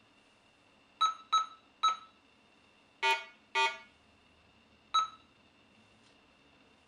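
Minelab Go-Find 60 metal detector giving its audio target signals as metal is passed over the coil: three short higher beeps in quick succession, then two longer, lower and buzzier tones, then one more short higher beep.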